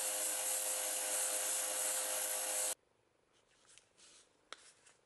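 Combination belt and disc sander grinding a steel bolt against its sanding disc: a steady grinding hiss over the motor's hum. It stops abruptly about two and a half seconds in, leaving only faint handling sounds and a small click.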